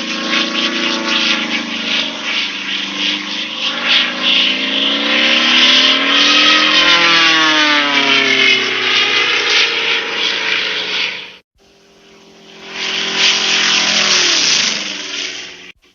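Airplane engine drone passing overhead: it grows louder with its pitch rising and then falling as it goes by, and it stops abruptly about eleven seconds in. A second plane pass fades in, its pitch dropping as it passes, and it is cut off near the end.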